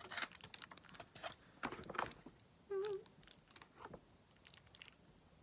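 Scattered sharp clicks and light scrapes of a plastic fork scooping macaroni and cheese, with one short hummed "mm" near the middle.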